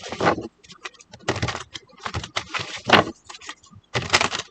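A deck of tarot cards being shuffled by hand: a run of dry, papery riffles and slaps in irregular bursts, the sharpest about three and four seconds in.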